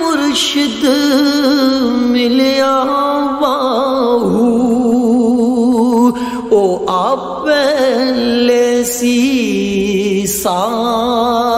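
A male voice singing a Punjabi Sufi kalam in long, ornamented notes with a wide wavering vibrato, over a steady drone underneath.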